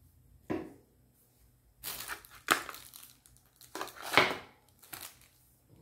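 Plastic packaging crinkling and rustling by hand as an item is unwrapped, in several short bursts, loudest about two and a half and four seconds in. A soft knock about half a second in.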